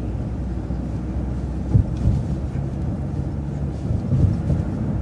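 Low, steady rumble of a city bus's engine and road noise heard from inside, with a single knock about two seconds in.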